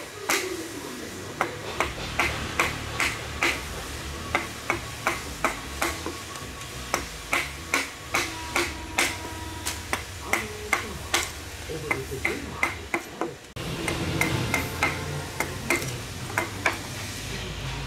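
Carving chisel striking into a wooden log: a long run of sharp, evenly spaced strikes, one to two a second, as chips are cut away.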